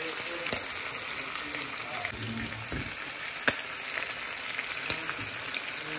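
Salmon fillets frying in butter in a pan: a steady sizzle with a few sharp pops of spitting fat, the loudest about three and a half seconds in.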